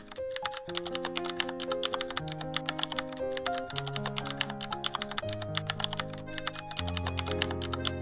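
Rapid computer-keyboard typing clicks, a sound effect for on-screen text being typed out, over background music with held notes.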